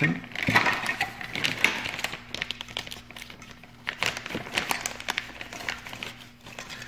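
Irregular clicks, taps and rustles of plastic parts being handled: the duct smoke detector's housing and fittings turned over in the hands. They come densely in the first few seconds, thin out, and pick up again about four seconds in.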